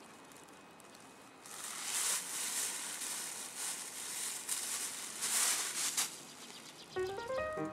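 Thin plastic shopping bag crinkling and rustling in uneven bursts as hands rummage in it and pull out a glass bottle. Music starts near the end.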